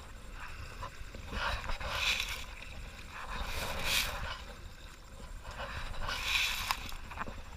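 Kayak paddle strokes: the double-bladed paddle dipping and pulling through the water, splashing and dripping on alternate sides about every two seconds. A steady low rumble of wind on the microphone runs underneath.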